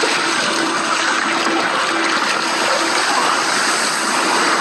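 Rough, stormy sea: waves breaking and water splashing around an inflatable life raft, a steady, dense rush of water.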